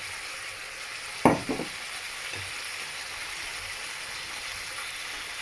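Sliced chicken breast frying in oil in a pot, with ginger, onion and garlic, sizzling steadily. One sharp knock comes about a second in, with a couple of fainter ones after.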